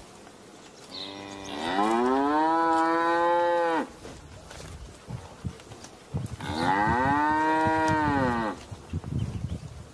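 Cattle mooing: two long moos a few seconds apart, each about two seconds long, rising in pitch and then dropping off at the end.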